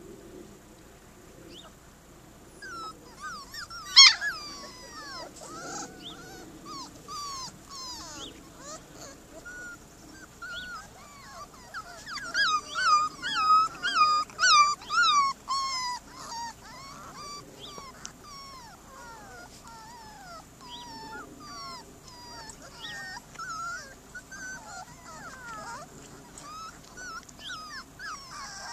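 A litter of Border Collie puppies whining, with many short high-pitched whimpers overlapping. A sharp, loud yelp comes about four seconds in, and a dense run of whines comes between about twelve and sixteen seconds in.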